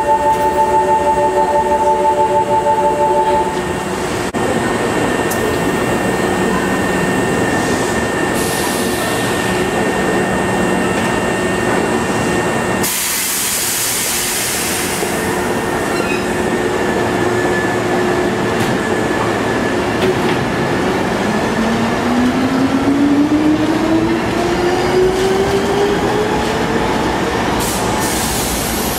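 Hankyu Kyo-train Garaku electric train at a station platform: a few steady chime tones end in the first few seconds, a loud burst of air hiss comes about halfway, and from about two-thirds in the train pulls out with a steadily rising motor whine over the running noise.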